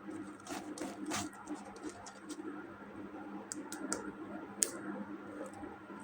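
Plastic toy parts and packaging being handled in an ASMR unboxing, giving irregular light clicks and taps, the sharpest about three-quarters of the way through, over a steady faint electrical hum.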